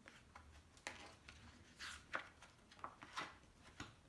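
Near silence with faint handling noise: a few soft rustles and light taps, spaced irregularly.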